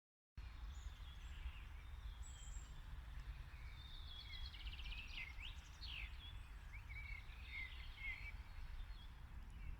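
Small birds chirping and trilling, busiest in the middle, with quick up-and-down notes, over a steady low rumble.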